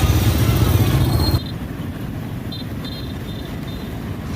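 Street ambience with motor traffic: a loud, steady low rumble cuts off abruptly about a second and a half in, leaving quieter background noise with a few faint high chirps.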